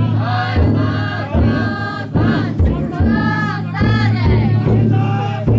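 Futon daiko festival float: a group of voices chanting together in a sung rhythm over a large taiko drum struck at a steady beat, a little faster than once a second.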